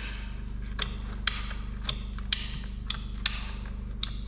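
Ratcheting PVC pipe cutter clicking as its blade is worked through plastic pipe: sharp clicks about twice a second, over a steady low hum.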